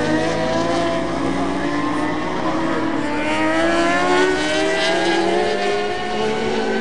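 Several racing motorcycle engines accelerating past together, their overlapping pitches climbing steadily.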